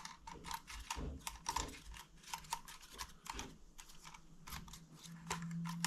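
Irregular light clicks and taps from small plastic parts of a DJI Mini drone being handled while its motor is checked for dirt. A low steady hum starts near the end.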